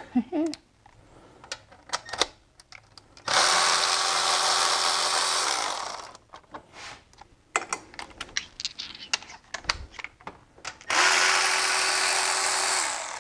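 Cordless electric ratchet running in two spells, about three seconds and two seconds long, each winding down at the end as it backs out the small bolts holding a pipe on the engine. Between the runs come light metallic clicks of the socket and bolts being handled.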